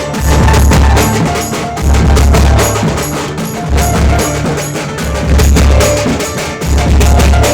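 Tasa drum band playing: fast, dense tasa drum strokes over heavy bass drum booms that come in repeated blocks, with a held melody line on top.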